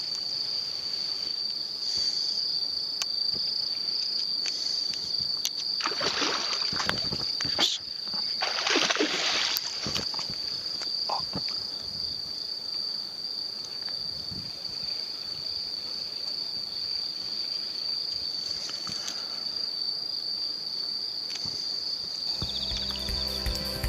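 Insects chirring outdoors in a steady high-pitched trill, with two brief splashy water sounds about six and nine seconds in.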